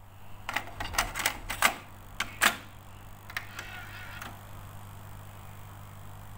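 Cassette deck mechanism clicking as the cassette door is pushed shut and the transport engages: a quick string of sharp clicks over about two seconds, then a few softer ticks. After that comes a steady low hum with hiss.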